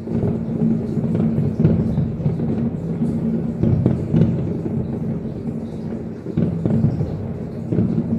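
Fireworks display: a continuous barrage of overlapping booms and bangs from many shells bursting in quick succession, with a steady low tone underneath.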